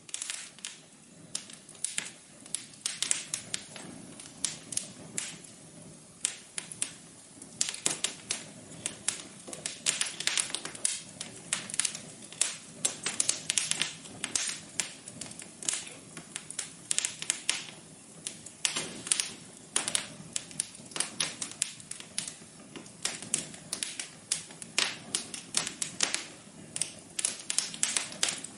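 Wood fire crackling in a fireplace: rapid, irregular sharp pops and snaps over a steady low hiss.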